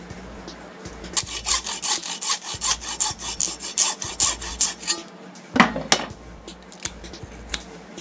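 A saw cutting through the secondary winding of a microwave oven transformer in a quick run of even back-and-forth strokes, about five a second, which stops a little past halfway. A single louder knock and a few light clicks follow.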